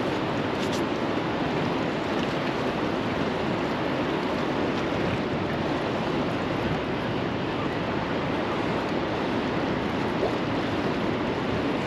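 Steady rush of fast-flowing river water below a dam, mixed with wind.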